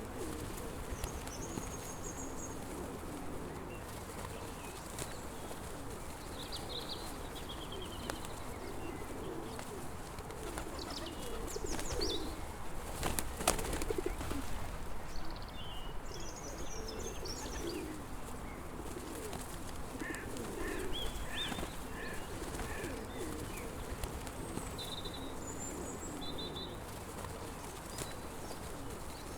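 Pigeons cooing over and over in low, rolling phrases, with smaller birds chirping high above them. A brief sharp noise cuts in about halfway through.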